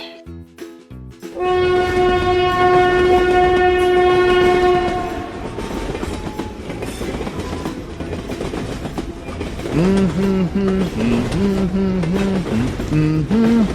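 Train horn sounding one long, steady blast starting about a second in, followed by a train running along the track with a steady rumble. In the last few seconds a short rising-and-falling pitched tune joins in.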